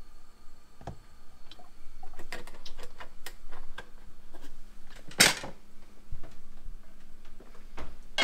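Kitchen handling sounds: a run of light clicks and knocks of cookware and utensils, with a sharp clack about five seconds in and another near the end.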